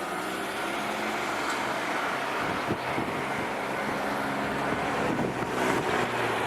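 Kishigawa Line electric train running past over a level crossing: a steady low motor hum over the rush of wheels on the rails, with a few sharp clacks over rail joints about two and a half to three seconds in.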